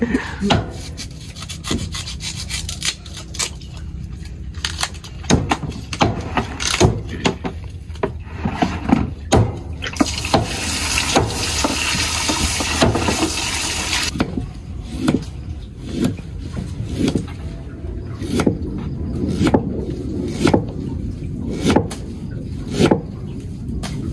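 Cleaver and hands working duck meat on a wooden chopping board: irregular sharp knocks with rubbing and scraping. A steady rushing hiss runs for about four seconds in the middle.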